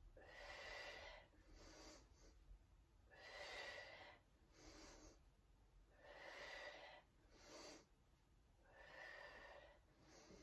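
Faint, rhythmic breathing of a woman exercising: controlled Pilates breaths, in through the nose and out through the mouth, paced with her leg kicks. A longer breath and a shorter one repeat about every three seconds, four times over.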